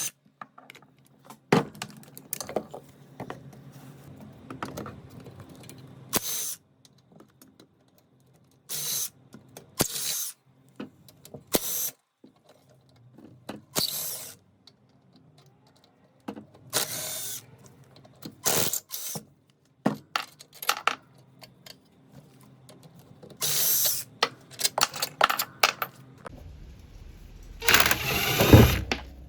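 Tools at work taking a lawnmower apart: a run of short, separate bursts of tool noise, mostly under a second each, with a longer, louder one near the end.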